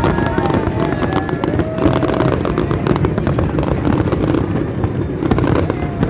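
Fireworks display: dense, continuous crackling and popping of many bursts at once, with a few thin gliding whistles.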